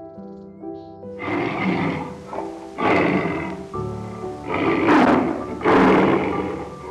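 Tiger growling, four loud growls roughly a second and a half apart, over background music with piano.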